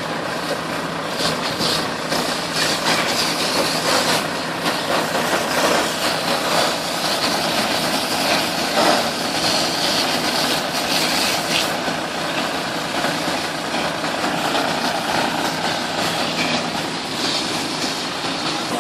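A 1000-tonne static pile driver's engine and hydraulic power pack running steadily: a constant machine noise with a few faint clicks.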